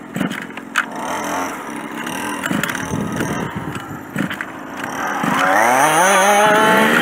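Small two-stroke petrol engine of a large-scale Losi Desert RC buggy being cranked, with irregular knocks and coughs, then catching about five seconds in and rising in pitch to a steady run. It is a cold start on a chilly day.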